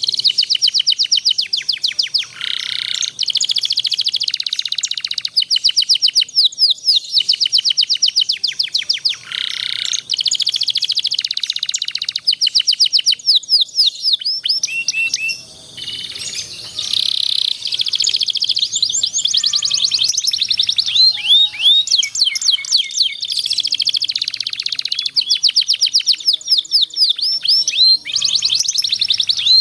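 Canary singing a long, unbroken song of fast high rolling trills and chirp series, switching to a new trill every second or two with only a short break about halfway. This is a master song recording of the kind played to young canaries to teach them.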